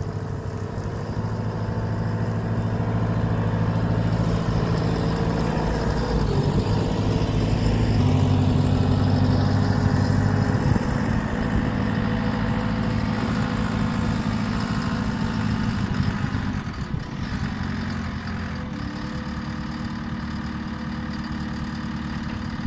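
JCB 330 skid steer's diesel engine running as the machine drives across the field carrying a load of fence posts on its forks. The engine note shifts in pitch a few times and grows somewhat quieter after about two-thirds of the way through as the machine moves away.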